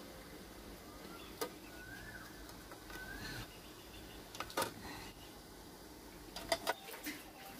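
A few quiet metallic clicks, spaced out, as small steel plates of rice batter are set down on an aluminium steamer's perforated tray.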